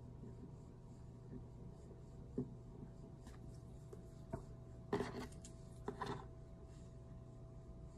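Quiet handling of press-on nails being glued on: a few faint clicks and taps of the plastic nail tips against fingernails, with two slightly louder brief clusters about five and six seconds in, over a steady faint hum.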